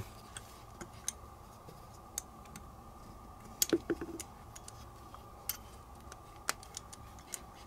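Faint, scattered light clicks and taps of small steel parts as a Ruger PC9 carbine's bolt is worked with a punch, its bolt face pressed down to free the two retaining pins. A short cluster of clicks comes about halfway through.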